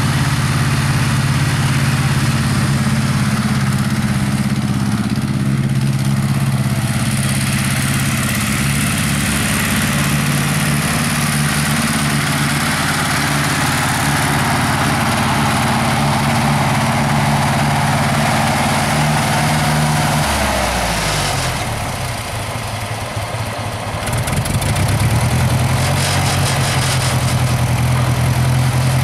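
Farmall 300 Utility tractor's four-cylinder gasoline engine running steadily at idle. About twenty seconds in its speed falls away. A few seconds later it is running steadily again.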